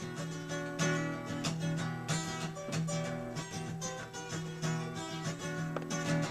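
Acoustic guitar strumming chords in a steady rhythm: the instrumental opening of a song, with no singing yet.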